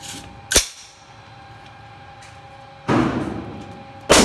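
Three sharp bangs ring out in an echoing indoor shooting range. The first comes about half a second in, a heavier one near three seconds trails off over about a second, and the loudest comes just before the end. A steady hum runs underneath.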